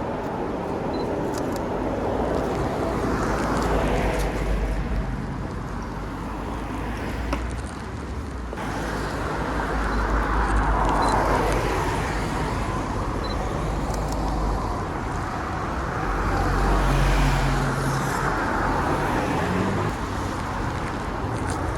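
Road traffic: cars passing on a wet street, their tyre hiss swelling and fading about three times over a low engine rumble.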